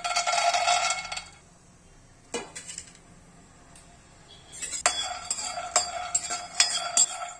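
Raw peanuts poured from a steel plate rattle into an empty nonstick kadai for about a second as they go in to dry-roast. After a short lull, a steel ladle starts stirring them around the pan, with repeated clinks and scrapes and a metallic ring.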